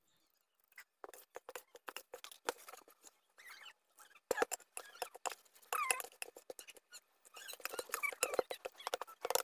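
Spoon clicking and scraping against a steel bowl while flour is mixed into a batter: a run of quick, uneven clicks with a few short squeaks, getting busier and louder in the last two seconds.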